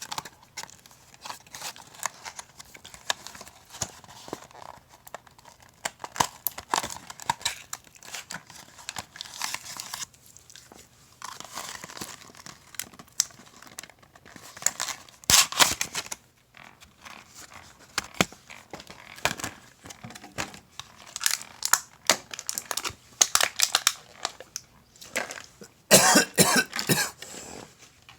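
Plastic blister and cardboard toy packaging being handled and opened by hand, with irregular crinkling, crackling and clicking. Near the end a person coughs several times.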